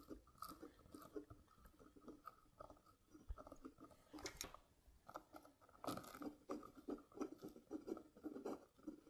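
Faint crunching and scraping of plastic wire nuts being twisted onto electrical wire ends, in short scattered spells with pauses between them. The clearest come about four and six seconds in.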